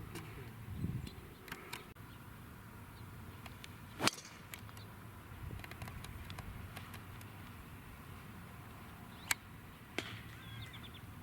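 Sharp knocks of a golf club striking a ball, the loudest about four seconds in, then two shorter clicks near the end, over quiet outdoor ambience with faint bird chirps.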